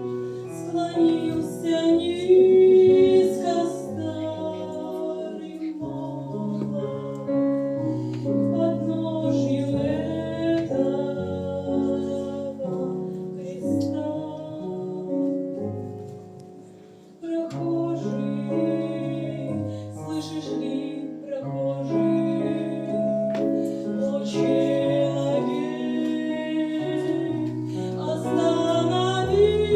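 A song: a woman's voice singing over keyboard accompaniment, with a brief drop in loudness a little past the halfway point before it picks up again.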